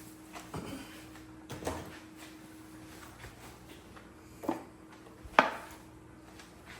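Four sharp knocks and clicks of spice containers being handled and set down on a kitchen counter, the loudest near the end, over a faint steady hum.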